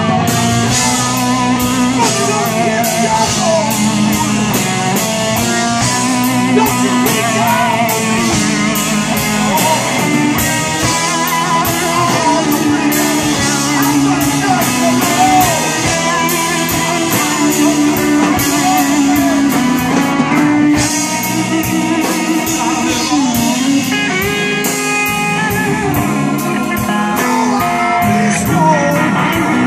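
Live blues-rock band playing: electric guitar, keyboards, bass guitar and drum kit, with a male lead vocal.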